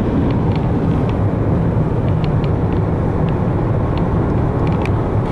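Steady low road rumble inside the cabin of a car cruising at highway speed, with a few faint light clicks.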